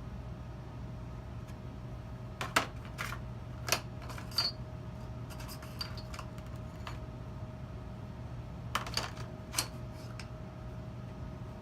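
Light clicks and taps of small hard parts being handled, likely the Edge Pro sharpener's stones and fittings, in two short clusters over a steady low hum.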